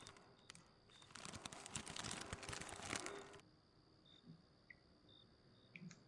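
Quiet rustling and crinkling of a bag being handled and opened, lasting about two seconds and stopping suddenly, followed by a few faint ticks and short high chirps.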